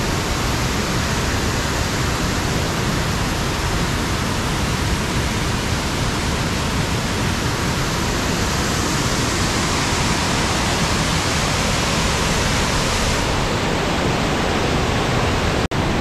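Swollen river rushing over rocks in rapids: a steady roar of water, broken by a momentary dropout near the end.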